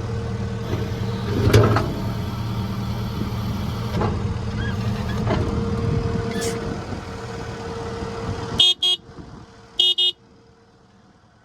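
Case TV370 compact track loader's diesel engine running steadily, with a knock or clank about a second and a half in. Near the end the engine sound cuts off suddenly, followed by two short electronic beeps about a second apart.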